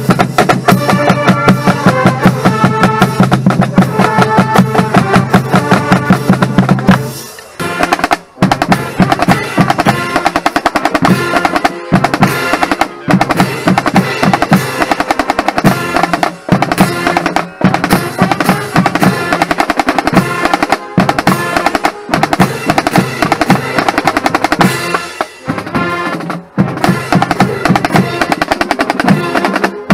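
Marching band drumline playing a fast cadence on snare and bass drums, with quick rhythmic stick strokes and rolls. For about the first seven seconds, sustained pitched notes sound over the drums; after that the drums play alone.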